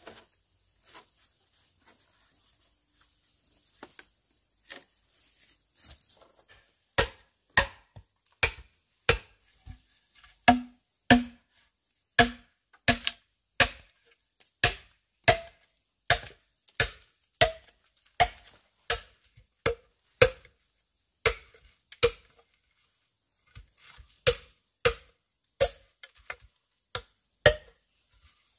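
Chopping with a blade: a few light taps, then steady strikes about seven seconds in, roughly one to two a second, each with a short ring, with brief pauses.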